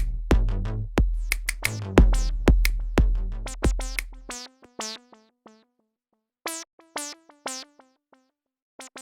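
Electronic outro music: a drum-machine beat with heavy synth bass and plucked synth notes. The beat and bass drop out about halfway through, leaving sparse plucked notes.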